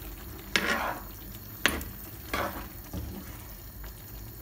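A spatula stirring a simmering stew in a large pan: several scrapes and knocks against the pan about a second apart, over a steady simmer.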